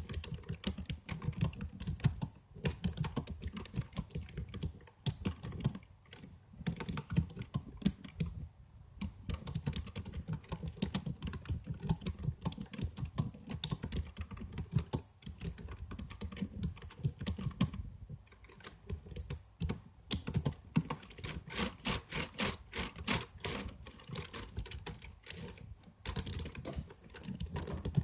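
Computer keyboard being typed on: a rapid, continuous run of key clicks, broken by a few short pauses.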